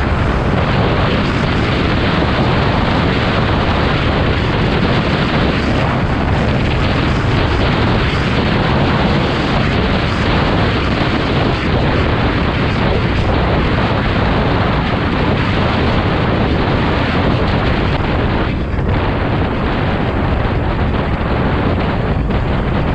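Heavy wind buffeting on a helmet-mounted GoPro's microphone at road speed, a loud, steady rush, with the Yamaha Mio Gravis scooter's engine and road noise mixed in beneath.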